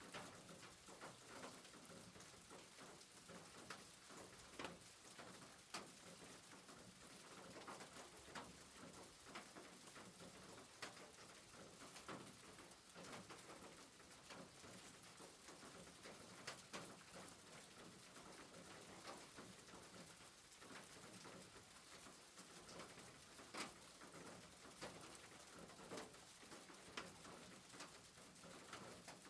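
Faint rain on a rooftop: a steady soft hiss with irregular single drops ticking sharply on the roof.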